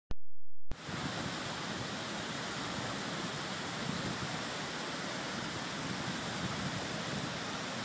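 Torrent of muddy floodwater rushing through a washed-out dam spillway: a steady, loud rush of white water. It cuts in after a click and a short low hum under a second in.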